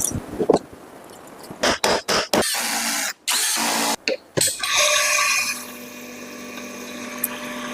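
Small electric motor switched on in a few short bursts, then running steadily with a hum.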